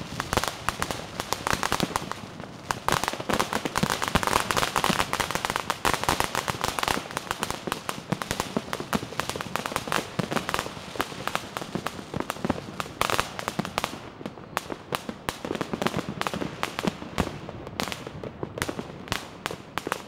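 Strings of firecrackers going off on the pavement in a dense, unbroken rattle of sharp cracks. From about two-thirds of the way in, the cracks come less densely, as more separate bangs.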